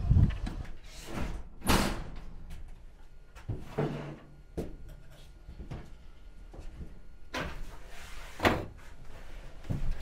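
Scattered knocks and thumps, about seven of them, loudest near two seconds and eight and a half seconds in: a camper's door being handled and footsteps on its wooden floor as someone climbs in and moves about inside.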